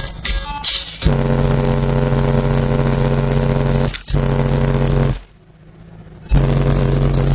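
Two 12-inch Pioneer TS-W306C car subwoofers playing a loud, sustained low bass note. It cuts out briefly about four seconds in and drops away for about a second just past five seconds.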